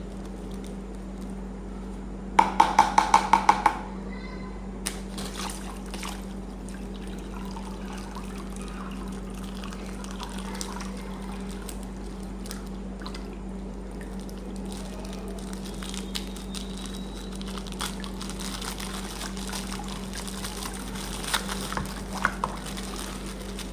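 Handling noises: scattered light clicks and rustles over a steady low hum, with a quick run of about eight sharp clicks about two and a half seconds in and a few more clicks near the end.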